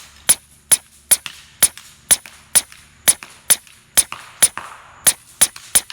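A Huben K1 .25 calibre semi-automatic pre-charged pneumatic air rifle fires a rapid string of about a dozen sharp shots, roughly two a second, as fast as the trigger is pulled.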